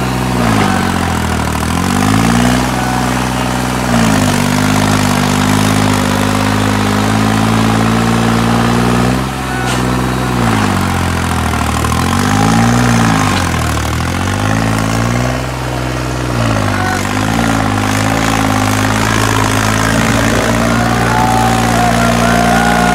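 New Holland 3630 tractor's diesel engine working hard, hauling a double trolley of sugarcane through deep sand. Several times the engine speed sags and climbs back as it lugs under the heavy load.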